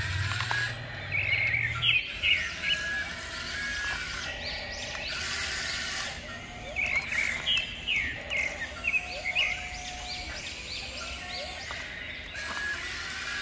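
Birds chirping and calling over a steady background hiss, with short, repeated chirps throughout. A low hum runs under them for the first two seconds, then stops.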